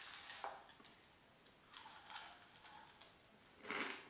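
Wooden spoon clicking and scraping against a ceramic bowl in the first second, then faint chewing of a mouthful near the end.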